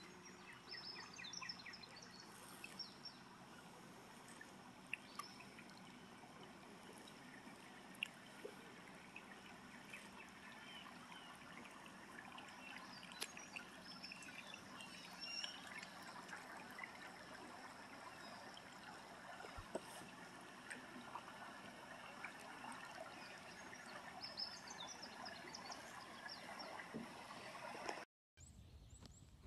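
Faint river water trickling and lapping around a drifting kayak, with scattered light ticks.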